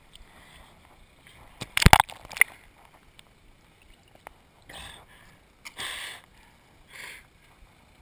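Handling noise on an action camera: a cluster of sharp knocks about two seconds in, then three short bursts of rustling hiss roughly a second apart.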